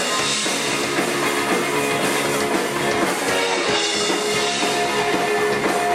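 Rock band playing live, with drum kit, guitar and bass at a steady loudness and held notes over a regular drum beat.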